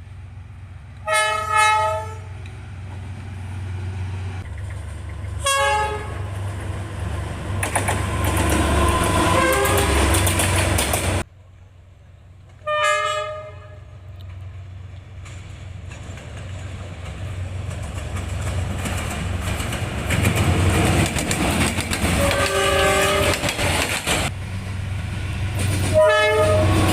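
Horns of D19E diesel-electric locomotives sounding short blasts, about five of them, each a chord of several steady tones, coming about 1, 5.5, 13, 22.5 and 26 seconds in. Between the blasts the locomotives and trains rumble past, and the noise cuts off sharply about 11 seconds in.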